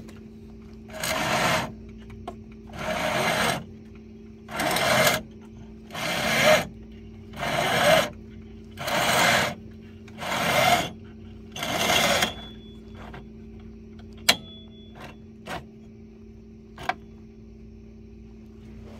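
ATV winch drum free-spooling with its clutch pulled out, the cable drawn off by hand in about eight pulls, each pull a short whirring rush from the spinning drum; a few light clicks follow.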